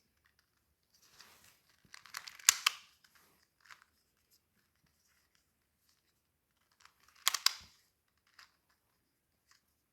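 Plastic 2x2 Rubik's cube being turned by hand: quick clicking and clacking of the layers, in two louder flurries about two seconds in and again about seven seconds in, with scattered light clicks between.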